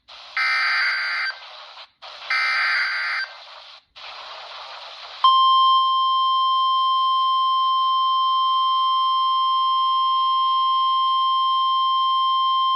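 NOAA Weather Radio alert played through a RadioShack 12-254 weather radio's speaker: the last two bursts of the SAME digital header, each a buzzy data burst lasting about a second, with hiss between them. About five seconds in, the steady 1050-hertz warning alarm tone starts, signalling a warning, here a severe thunderstorm warning.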